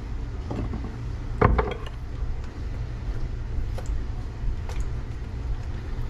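A sharp knock about a second and a half in, then a few light clinks of a spoon against a glass bowl as coconut cream is stirred in, over a steady low hum.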